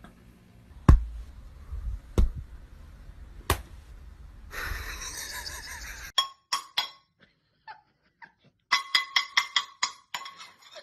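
Three sharp knocks about a second and a half apart, the first the loudest, then a short stretch of hiss. Later comes a quick run of ringing metallic clanks, about five a second, from a dog beating a small cymbal held in its paws.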